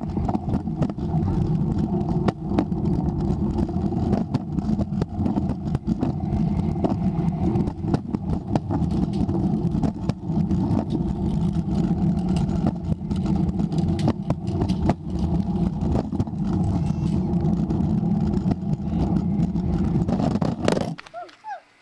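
Scooter wheels rolling on a concrete driveway: a steady rumbling drone with frequent small clicks and knocks, stopping abruptly near the end.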